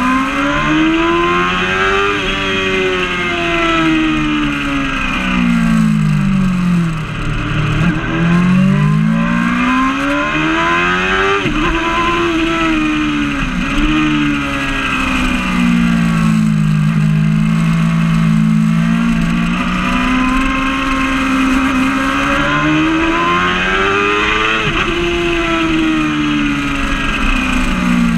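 Yamaha R6 (5EB) 600 cc inline-four sport-bike engine heard onboard at track speed, its pitch climbing under acceleration and dropping sharply at gear changes and braking, several times over, with steady wind rush.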